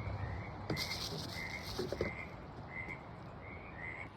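Frogs croaking in a steady series of short calls, about two a second, over a soft background hiss, with a brief hissing rustle about a second in.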